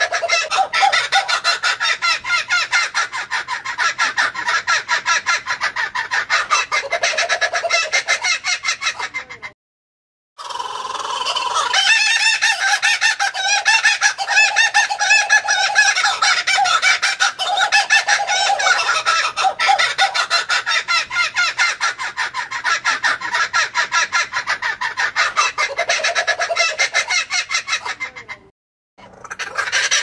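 Laughing kookaburra calls: long runs of the fast, cackling laugh of rapidly repeated notes. They are broken by two brief gaps, about a third of the way in and near the end.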